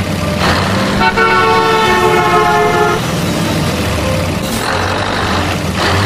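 A truck horn sounds one long blast of about two seconds, starting about a second in, over the steady low hum of a truck engine.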